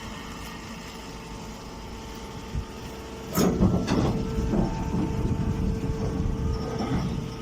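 Straw baling machine running with a steady hum, then a loud rattling rush begins about three and a half seconds in and lasts several seconds before easing off near the end.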